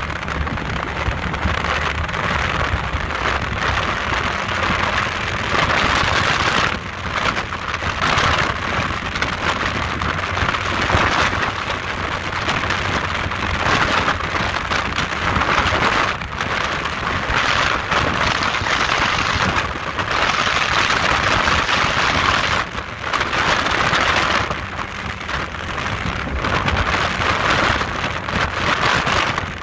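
Powerboat running at high speed, about 60 mph with the engine near 5,000 rpm: a loud, steady rush of wind and water over the hull and microphone, with the engine's low drone underneath. The rush dips briefly a few times.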